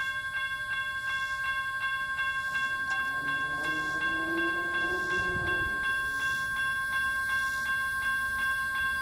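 Railroad crossing warning bell ringing in a steady, even rhythm of about two strokes a second while the crossing gates lower, signalling an approaching train. A brief lower hum rises and fades near the middle.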